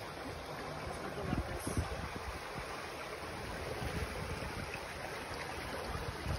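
Shallow rocky stream flowing steadily over stones, with wind rumbling on the microphone.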